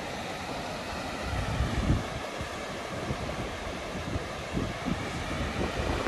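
Steady rush of water spilling over a concrete river weir, with wind buffeting the microphone in low gusts, strongest about two seconds in.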